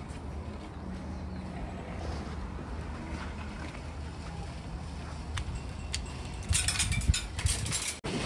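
Wind rumbling on the microphone, then a few light clicks and, about six and a half seconds in, a loud rattling clatter of metal lasting about a second: a coin-lock shopping trolley being unlocked and pulled free of a row of nested trolleys.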